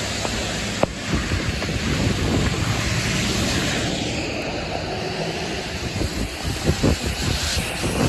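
Passing vehicles driving through a deep roadside puddle, their tyres throwing up a continuous rushing spray of water and hissing on the flooded pavement.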